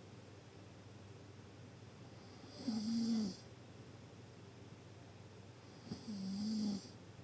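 Deep snoring: two snores about three seconds apart, each under a second long with a steady low pitch.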